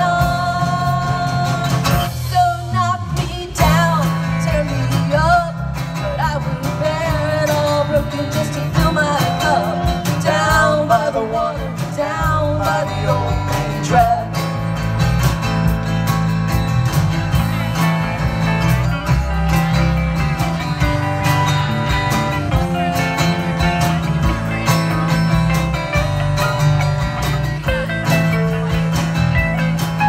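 A live rock band playing: a woman singing lead over acoustic guitar, electric bass, electric guitar and drums, with a steady bass line underneath.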